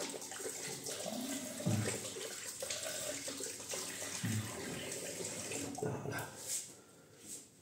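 Bathroom tap running into a sink, with splashing as the face is rinsed after a shave. The water stops about six seconds in.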